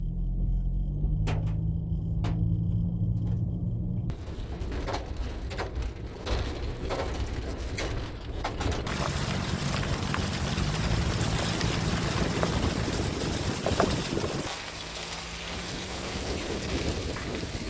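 Nissan NV200 van's engine running and its tyres on a rough track, heard from inside the cab, with a few knocks from the body in the first few seconds. A rushing wind noise builds over it. In the last few seconds the engine drops out and only wind rushing through the trees is left.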